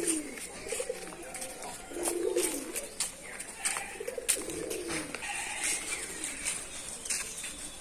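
Low cooing bird calls, short and repeated about every second or so, with scattered light clicks and rustles.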